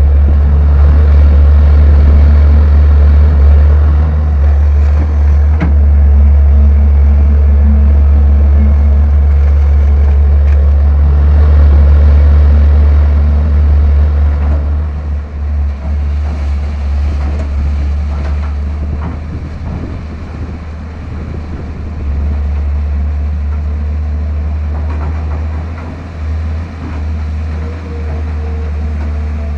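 Caterpillar 320 excavator's diesel engine running steadily at working speed, with a few knocks. The sound drops to a lower level about halfway through.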